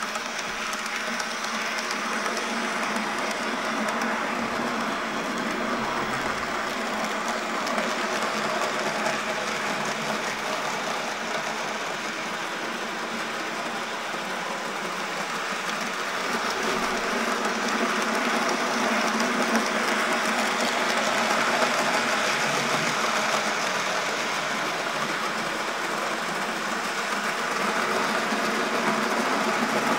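N gauge Graham Farish Class 37 model diesel locomotive hauling a rake of tank wagons round the track: the small motor whirring steadily over the rattle of wheels on the rails, growing louder as the train comes nearer.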